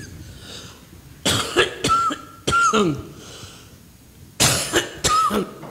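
A person coughing in two fits: several harsh coughs starting about a second in, then another couple near the end.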